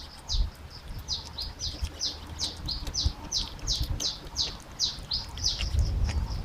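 A small bird chirping over and over, short high falling chirps about three or four a second, over a low rumble.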